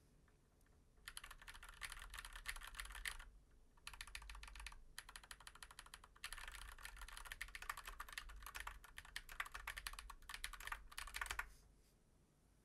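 Typing on a mechanical keyboard with tactile switches: rapid runs of key clicks starting about a second in, with two short pauses, stopping about a second before the end.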